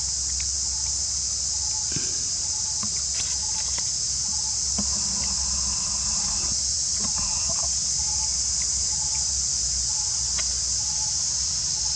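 Steady, high-pitched shrilling of insects in chorus. A faint short chirp repeats about twice a second beneath it, with a few soft clicks.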